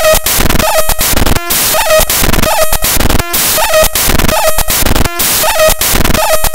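Loud, harsh electronic noise: a dense crackling, hissing loop that repeats about every two seconds, broken by short sharp dropouts and a brief recurring mid-pitched tone.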